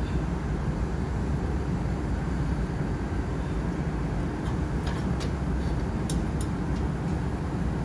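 Steady low machine hum, with a few light metallic clicks about five to six and a half seconds in, as metal parts are handled.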